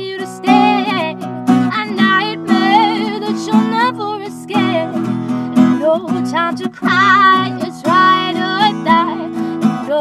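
Acoustic guitar strummed steadily while a woman sings long, wavering held notes over it.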